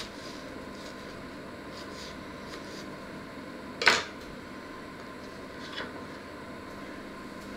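Small kitchen knife knocking on a wooden cutting board: a few light taps, with one sharp clack about four seconds in, the loudest sound, as the knife meets the board.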